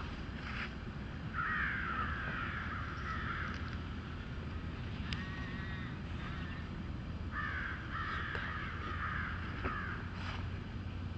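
Crows cawing: a run of repeated caws about a second in, a shorter call around the middle, and another run from about seven seconds, over a steady low rumble.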